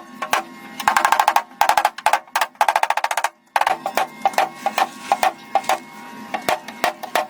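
A rapid series of sharp percussive taps and clicks, packed into dense runs in the first half. They stop briefly about three and a half seconds in, then go on more sparsely.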